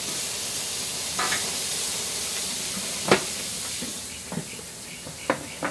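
Marinated quail sizzling on the hot grill of a Weber Q barbecue, a steady hiss broken by a few sharp metal clicks and knocks. The sizzle grows quieter about four seconds in, as the lid comes down over the grill.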